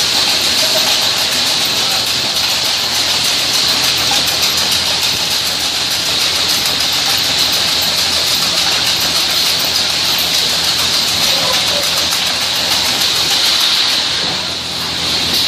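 Snack frying line machinery running: a loud, steady mechanical noise with a strong hiss and a faint low hum, dipping briefly near the end.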